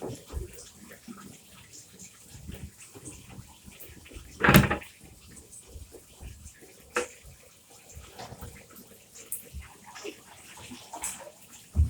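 Plastic vacuum cleaner parts being washed by hand in soapy water: small splashes and knocks of plastic, with a louder clatter about four and a half seconds in and a sharper knock a couple of seconds later.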